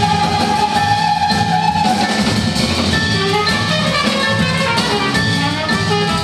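Large jazz ensemble playing a dense, busy passage: drum kit and percussion under many overlapping instrument lines, with one long held note through the first two seconds.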